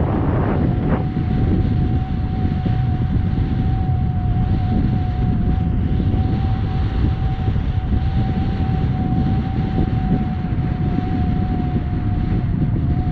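Wind buffeting the microphone on a fast-moving windsurf foil board, with water rushing underneath and a steady thin whistle held throughout.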